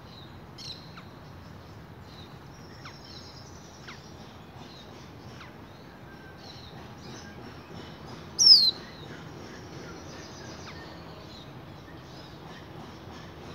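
Young caged finch twittering softly in scattered short chirps, with one much louder downward-sweeping call about eight and a half seconds in, over a low steady background hum.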